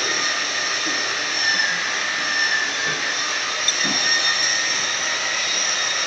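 Steady machine drone with a high, even whine.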